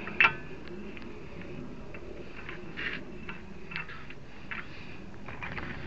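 Scattered sharp metallic clicks and clinks of hand tools at the front wheel hub, with the loudest one just after the start, as the axle nut is tightened with a screwdriver holding the hub.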